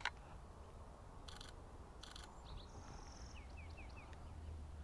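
Faint wild bird calls: two short harsh rasping bursts, then a brief high thin note and four quick downward-slurred chirps, over a low steady rumble.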